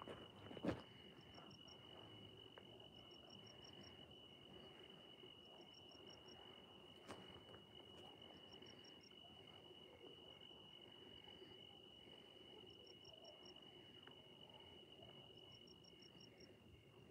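Faint crickets chirping in short rapid trills that repeat every second or two, over a steady high insect whine. A single sharp click sounds just under a second in.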